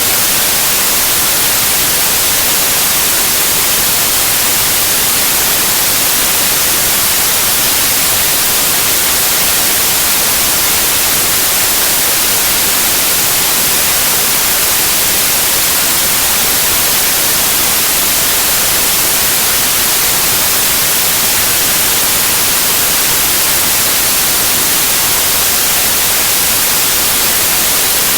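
Steady, loud white noise: an even hiss, strongest in the high range, unchanging throughout.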